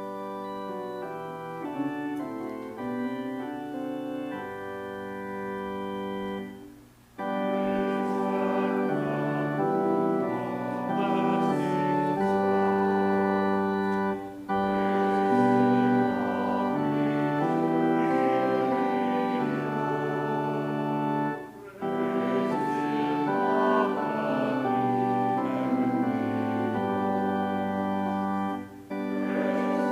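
Organ music with held chords. It plays softly for about seven seconds, then swells to a fuller sound in phrases separated by brief pauses.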